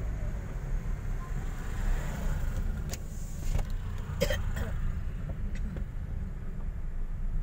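Car driving, heard from inside the cabin: a steady low rumble of engine and road noise, with a few short clicks and knocks between about three and five seconds in.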